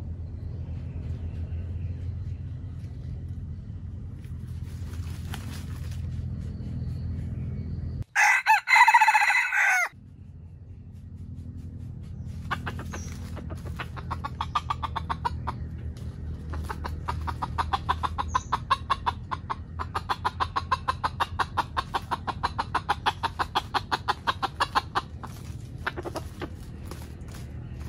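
Red junglefowl rooster crowing once, a loud, short crow of about two seconds that stops abruptly, then a long run of rapid clucking, about four or five clucks a second, from about twelve to twenty-five seconds in. A steady low hum runs underneath.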